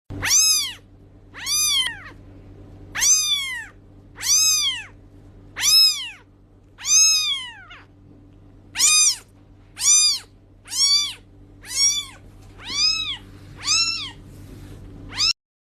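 A cat meowing again and again, about thirteen meows roughly a second apart, each rising then falling in pitch, over a faint steady hum.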